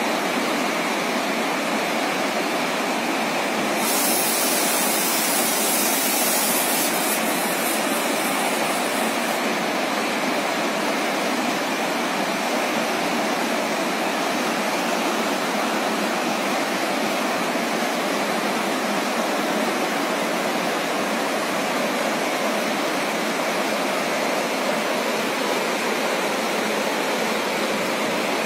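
Fast, shallow mountain river rushing through whitewater rapids over rocks: a loud, steady gushing. The hiss turns brighter for a few seconds about four seconds in.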